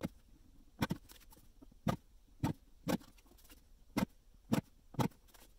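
Lever-arm guillotine paper cutter chopping through sheets of coloured card: about eight sharp chops at uneven intervals as the blade arm is brought down again and again.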